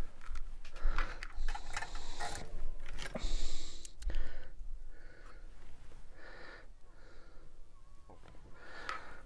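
Light clicks, knocks and rustles of a soldering iron and a coil of solder wire being handled at a workbench, busiest in the first four seconds and quieter after.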